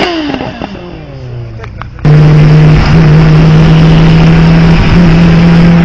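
Kawasaki sport motorcycle's engine note falling steadily as it eases off. About two seconds in, a loud, steady drone with a rushing noise abruptly takes over: a car running at speed, heard from inside the cabin.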